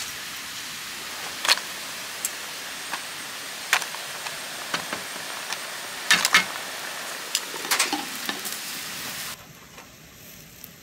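Beef sizzling as it grills: a steady frying hiss with a few sharp clicks and pops. The sizzle drops away suddenly about nine seconds in.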